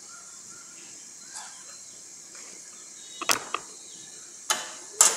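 Covered pot of chicken and potatoes cooking on a gas burner, with a steady hiss of sizzling and steam under the glass lid. Three or four sharp clinks and knocks come in the last two seconds, the loudest near the end.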